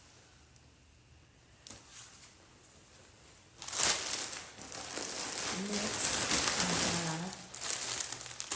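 Plastic packaging bag crinkling loudly as it is handled, starting about three and a half seconds in after a few faint clicks.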